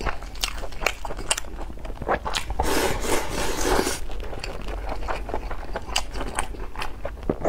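Close-miked eating: chewing and mouth sounds mixed with chopsticks clicking and scraping against a ceramic rice bowl, with a denser scraping, rustling stretch about halfway through.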